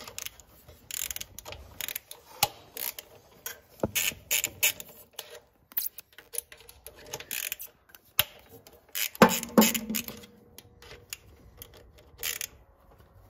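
Hand tools clicking and clinking on the rocker-arm poly locks and set screws as they are backed off, one after another, for a valve adjustment. The clicks come irregularly, with a louder metal clank about nine seconds in.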